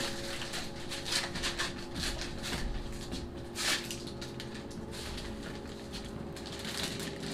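Faint rustling and light taps of things being handled, scattered irregularly, over a steady faint hum.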